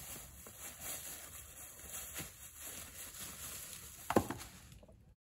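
Footsteps rustling through dry fallen leaves, then one sharp wooden clunk about four seconds in as a cut log is dropped onto a pile of split firewood. The sound cuts off suddenly just before the end.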